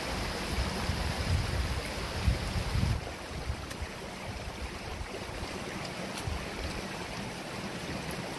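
Small stream running and trickling over stone steps, a steady rush of water, with low rumbles of wind on the microphone in the first few seconds.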